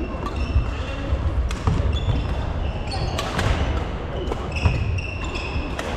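Badminton shoes squeaking on a wooden sports-hall floor, several short squeaks, with thudding footfalls and a few sharp knocks of rackets hitting shuttlecocks, echoing in a large hall.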